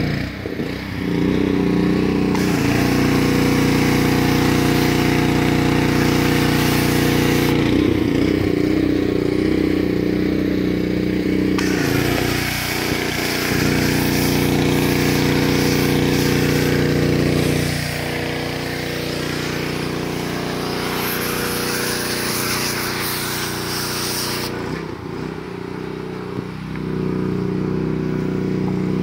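Gas-engine pressure washer running steadily, with the loud hiss of the water jet coming and going as the trigger is held for long stretches and released.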